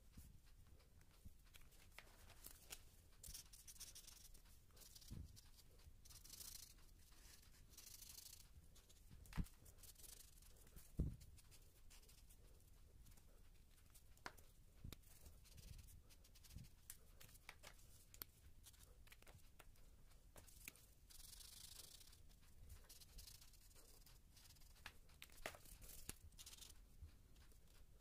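Faint felt-tip marker strokes on paper while colouring in: patches of scratchy rubbing a second or two long, with a few soft knocks, the loudest about eleven seconds in.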